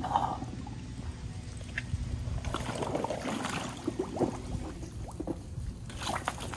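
Water splashing and gurgling in a flooded sump-pump pit, with small stones clicking and rattling in bursts through the middle and near the end. The rattle is the sign of a pebble still stuck inside the sump pump.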